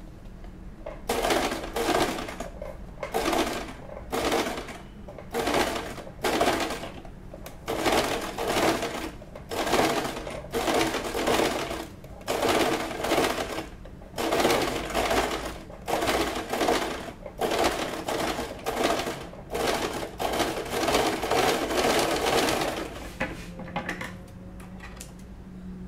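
Domestic electric sewing machine straight-stitching satin ribbon onto a foam bra cup in short start-stop runs, about one a second, as the seam is guided slowly around the curve. The stitching stops near the end.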